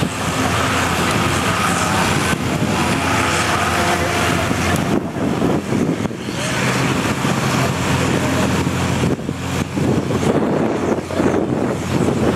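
Farm tractor's diesel engine running steadily under heavy load as it drags a weighted tractor-pulling sled.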